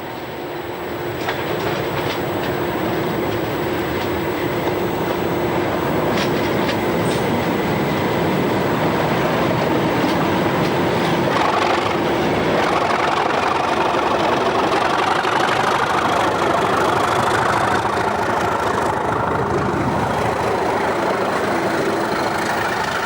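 Class 37 diesel-hauled passenger train passing, its wheels clattering over the rail joints. The sound builds over the first few seconds and then holds steady.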